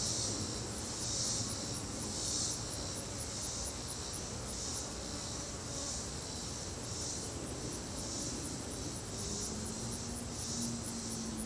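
Low hum of honey bees around an open hive, under a high insect chorus that pulses about once a second with a fast, even trill.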